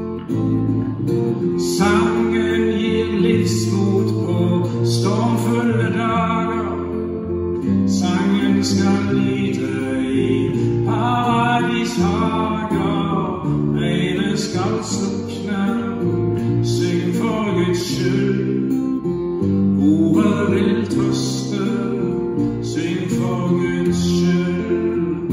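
A man sings a Norwegian song in short phrases, accompanied by a strummed acoustic guitar and an upright bass.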